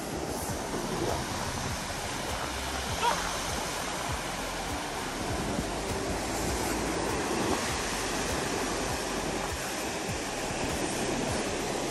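Steady rush of sea waves washing onto a beach.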